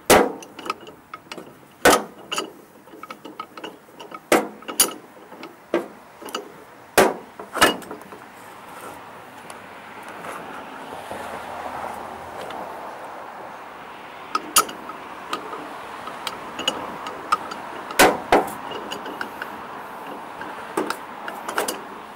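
Irregular sharp metal clanks and taps of hammer work on a mower part held in a vise. There are about eight strikes in the first eight seconds, a quieter stretch, then more strikes near the end.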